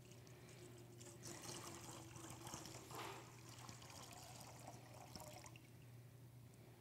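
Water poured from a glass pitcher into the metal bowl of a baptismal font: a faint trickle that stops about five and a half seconds in.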